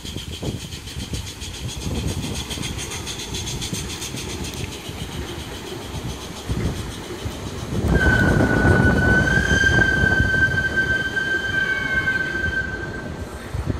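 1925 Krauss 381 mm gauge 'Liliput' steam locomotive and its passenger carriages passing close: rhythmic chuffing and the rumble of wheels on the rails. About two-thirds of the way in, a long, high, steady squeal rises over the louder rumble of the carriages.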